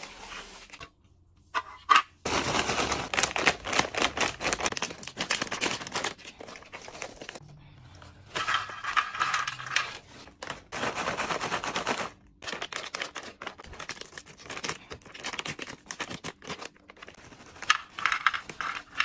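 Plastic snack packets crinkling as they are handled and opened, with crunchy puffed snacks rattling out onto a plastic tray. The sound comes in several loud crackling bursts separated by short pauses.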